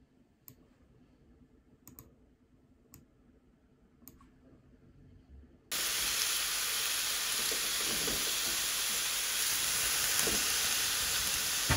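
A few sparse keyboard clicks against quiet. About six seconds in, the sound cuts to sliced chicken breast sizzling steadily in a frying pan, with a few light knocks of chopsticks turning the meat.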